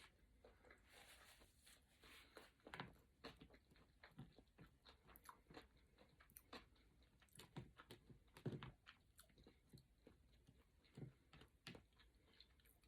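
Faint, close-up chewing of a mouthful of crispy California roll sushi, with soft irregular crunches.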